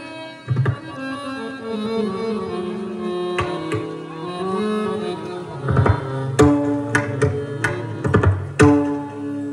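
Pakhawaj drum strokes over a sustained melodic accompaniment, an instrumental lead-in to devotional abhang singing; the drumming is sparse at first and thickens in the second half.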